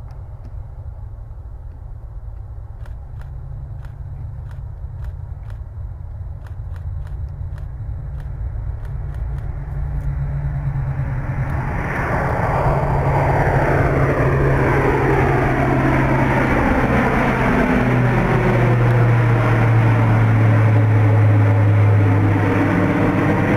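Airbus A400M Atlas's four TP400 turboprops at take-off power: a steady low propeller drone that grows louder as the aircraft takes off and climbs toward the microphone. From about twelve seconds in it becomes a loud rushing roar with sweeping tones as the aircraft passes overhead, and the low drone drops in pitch near the end.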